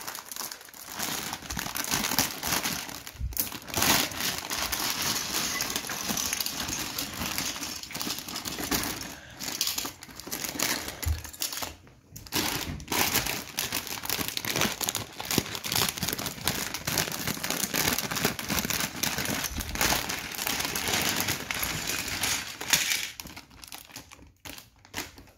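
Plastic bags of LEGO pieces being handled, crinkling and rustling continuously with brief pauses, dying down near the end.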